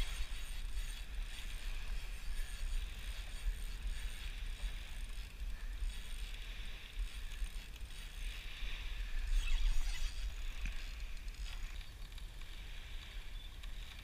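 Wind buffeting the action camera's microphone as a steady low rumble, with a hiss of small waves lapping at the shoreline; it swells briefly about two-thirds of the way through.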